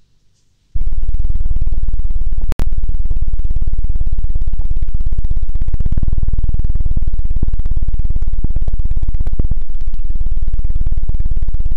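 ASMR 'helicopter' trigger: hands rapidly fanning and patting over the ear of a dummy-ear binaural microphone, giving a loud, fast, steady chopping thump. It starts about a second in and breaks off for an instant about two and a half seconds in.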